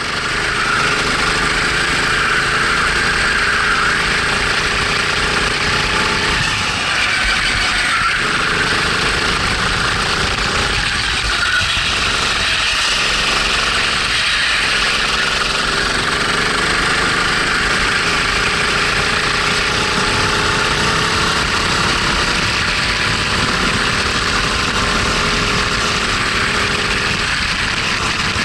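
Rental kart engine heard from the driver's seat, running hard under wind noise as the kart laps the track. The engine note dips a few times between about six and fifteen seconds in.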